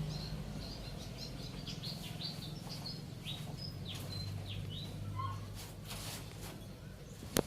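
Birds chirping: a rapid series of short, high, downward-sliding chirps that thin out after about four seconds, over a faint low hum, with a sharp click near the end.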